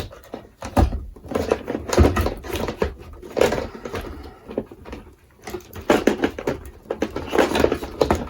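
Irregular knocks, clunks and scraping as a power inverter is squeezed into a toolbox, with a quieter spell about five seconds in.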